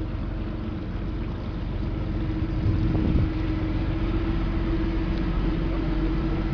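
Engine of a passenger tour boat running steadily underway, a droning hum with one strong steady note over a low rumble and the rush of water and wind. It swells a little about two and a half seconds in.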